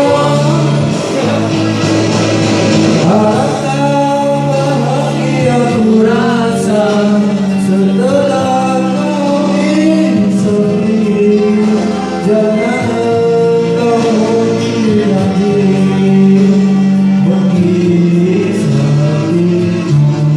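Karaoke performance of a Malay pop ballad: a voice singing sustained, gliding notes over a backing track.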